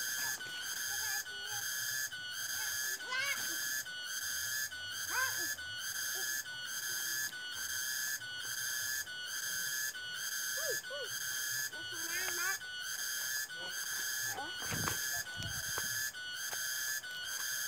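A high, whistle-like tone repeating in an exact, even pulse a little under twice a second, with a few short gliding chirps over it.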